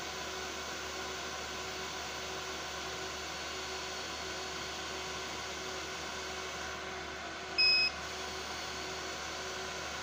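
One short high electronic beep from an MT-Viki 8-port USB KVM switch, the usual confirmation when it changes port, about three-quarters of the way in, over a steady electronic hum and hiss.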